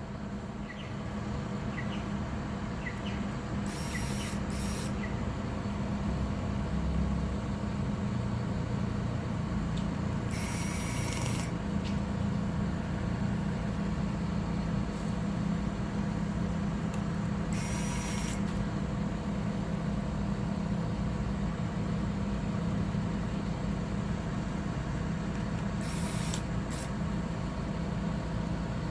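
A steady low mechanical hum, broken about five times by short bursts of hiss, the longest lasting about a second.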